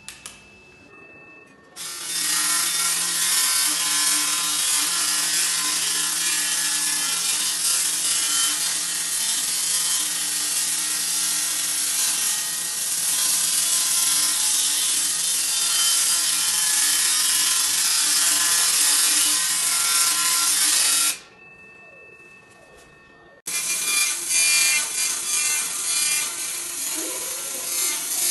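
200 W handheld laser cleaner stripping rust from a steel beam: a loud, steady hiss with a steady buzz beneath it. It starts about two seconds in, stops for about two seconds after twenty seconds, then starts again.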